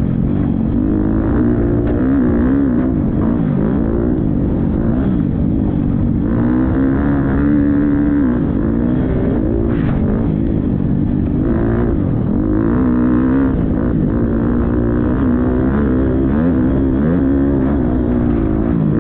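Motocross bike engine at race pace, revving hard, its pitch rising and falling again and again with throttle and gear changes.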